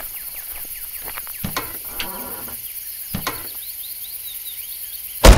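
Steady high chirring of field insects such as crickets, with a few soft knocks as someone settles into a car seat. Near the end a car door slams shut once, loud and sudden.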